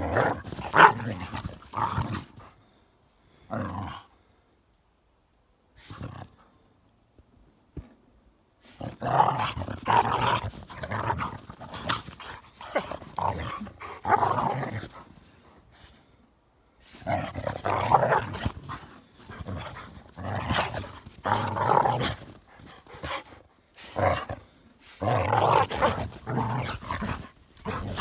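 Two dogs growling at each other in rough play, in long, rough bouts broken by a pause of a few seconds after the first ones.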